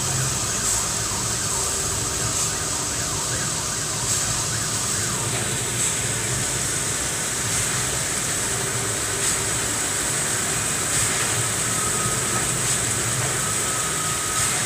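Heavy downpour hissing steadily, with a sharp tap every second or two from drops striking close by. A faint high tone comes and goes in the last few seconds.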